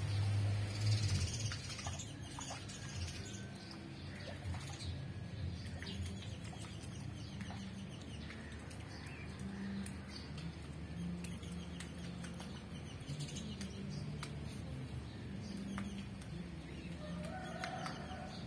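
Soft rustling and faint chirps from a duckling foraging among a plant's leaves, over a low steady hum.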